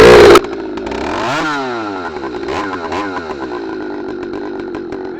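Cold-started ported Stihl MS310 two-stroke chainsaw with an open Ironhorse-style muffler: it comes in very loud, is revved up and down a few times, then runs steadily while warming up.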